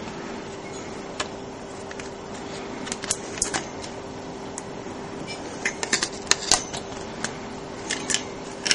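Graphics card's cooling fan being taken off: scattered clusters of small clicks and ticks from small screws and plastic and metal parts being handled. A faint steady hum runs underneath.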